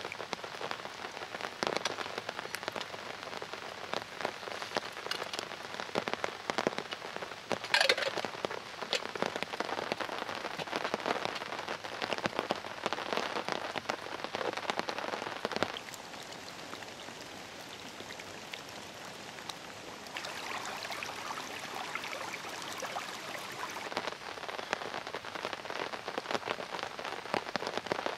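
Heavy rain falling on a tarp and the forest floor, a steady hiss full of sharp individual drop hits. One louder knock comes about eight seconds in, and the rain sounds lighter for a few seconds past the middle.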